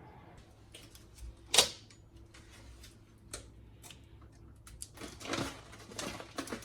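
Scattered clicks and knocks of kitchen items being handled during meal preparation, with one louder knock about a second and a half in and a few short rustles near the end.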